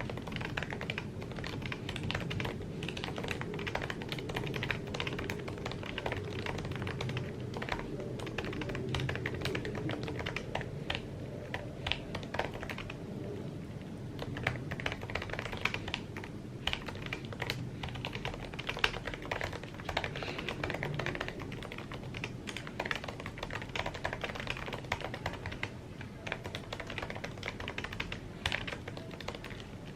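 Continuous typing on an Apple keyboard: a steady stream of light, quick key clicks over a low steady background.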